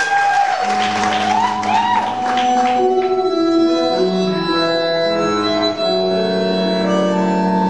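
Tango music: a sliding, arching melody for about the first three seconds, then long held chords.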